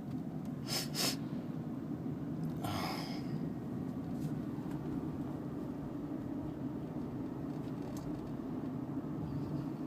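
Steady low rumble of a car's engine and tyres heard from inside the cabin while driving, with short breathy sounds from a person in the car twice about a second in and once near three seconds.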